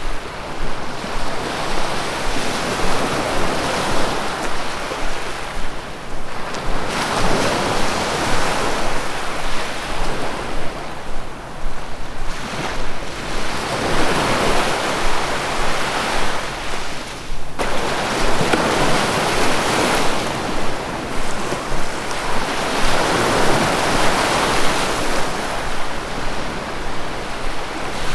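Sea waves breaking on a shore, the surf swelling and falling back in long rushes every few seconds.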